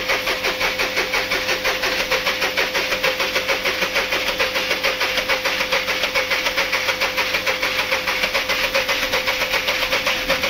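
VW Polo 1.2 engine running just after starting, with an even, rapid pulsing beat throughout. This is the abnormal noise of a freshly rebuilt engine that the mechanic sets out to trace, starting with the cam timing.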